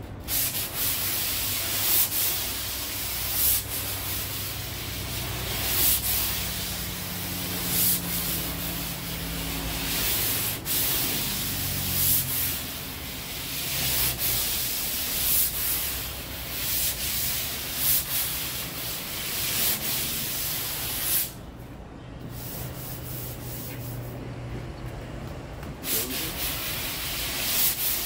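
Sandpaper on a small hand sanding block rasping back and forth over cured Bondo body filler on a car's quarter panel, in strokes about every second or two. The strokes ease off for a few seconds about three-quarters of the way through, then start again.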